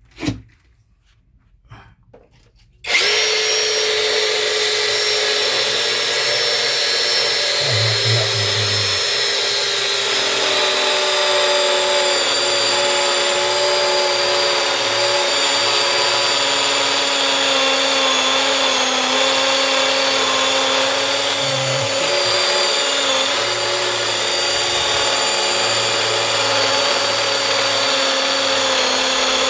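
SiRAJA brushless cordless drill in hammer mode starting up about three seconds in and running steadily, boring into concrete with a pyramid-point bit. A few small clicks come before it starts.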